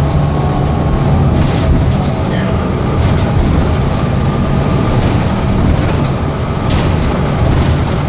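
Cabin of a Gillig Advantage hybrid transit bus under way: a steady low rumble from the drivetrain and road, with the air conditioning running. A few brief rattles from the cabin fittings come through now and then.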